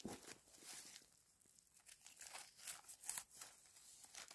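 Faint, scattered crackling and rustling of dry leaf litter as a hand digs out and picks small egg-stage mushrooms.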